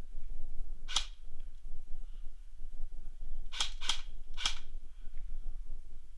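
Four airsoft gun shots, sharp snapping cracks: one about a second in, then three more in quick succession a little past the middle.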